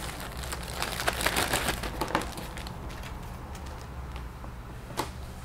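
Clear plastic zip bag crinkling and rustling as rubber model tires are taken out by hand and set down on a cutting mat, busiest in the first two seconds, with a single sharp click about five seconds in.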